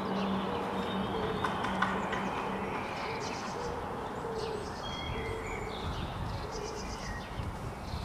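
Birds chirping in short high trills over a low, broken steady tone.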